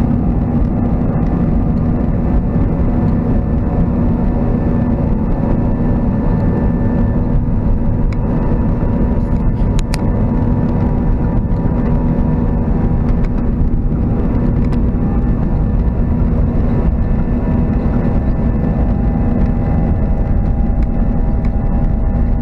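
Cabin noise of an Airbus A320-232 on the ground, heard from a window seat over the wing: its IAE V2500 turbofan engines running steadily at low power with a deep rumble and a steady hum. A few faint clicks sound about ten seconds in.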